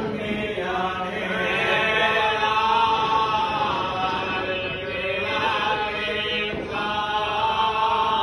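A group of men chanting verses in unison, a continuous pitched recitation in phrases.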